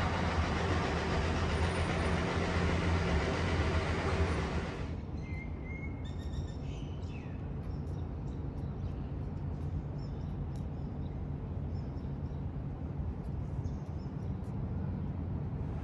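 A loud, steady rushing noise cuts off about five seconds in. After it comes a quieter open-air ambience: a low hum with scattered short, high bird chirps.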